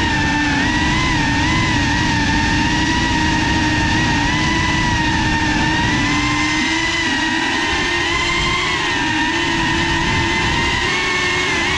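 FPV racing quadcopter's motors and propellers whining steadily, the pitch wavering a little with throttle, over a low rush of prop wash, picked up by the drone's onboard camera.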